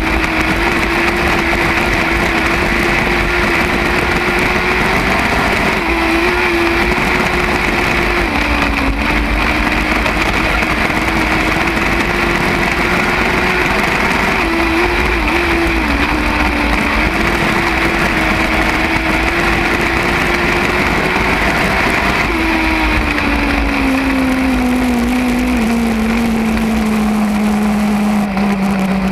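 Lightning sprint car engine running hard at steady revs, with short dips in pitch every few seconds as the throttle is lifted. Late on, the revs fall away steadily as the car slows.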